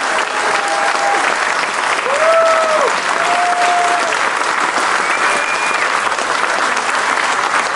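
Audience applauding, with a few cheers and whistles heard above the clapping.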